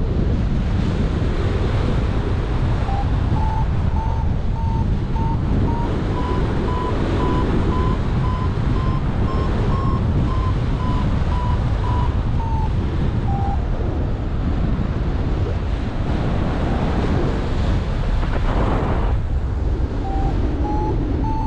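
Airflow rushing over the microphone in flight, with a paragliding variometer beeping its climb tone: short, evenly spaced beeps whose pitch rises and then drops, stopping about two-thirds of the way through and starting again near the end.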